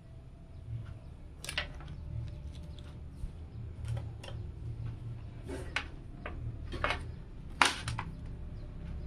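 Scattered light clicks and taps of a liquid cooler's CPU water block and its mounting bracket being handled and positioned, with one sharper knock about seven and a half seconds in, over a low steady hum.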